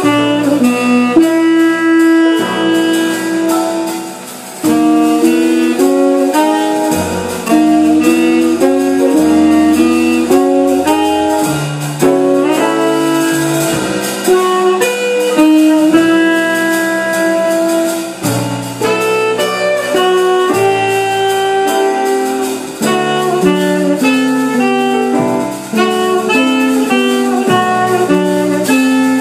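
Small jazz band playing, a saxophone carrying the melody over guitar, upright bass, piano and drums.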